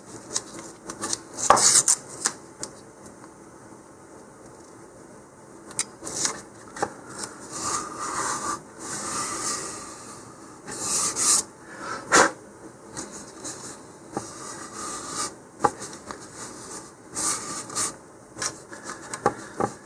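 Fingers rubbing and pressing masking tape down onto a fiberglass rocket body tube, to seal its edge tight: an intermittent dry scratching with a few sharp clicks.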